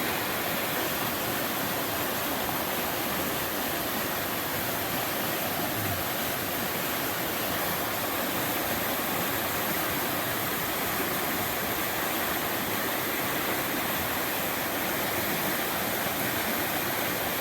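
River water rushing over rocks in a steady, unbroken wash of noise, the river running high after heavy rain.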